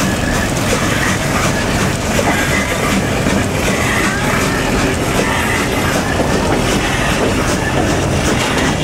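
Narrow-gauge sugar-mill steam locomotive and its tender passing close by at a road crossing, a steady mechanical rumble and clatter of running gear and wheels on the track. A small pickup truck's engine joins in near the end.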